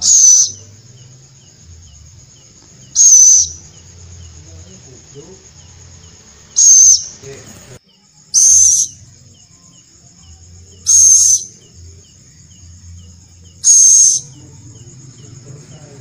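Young scops owl (celepuk) giving a short, high-pitched call six times, roughly every two to three seconds.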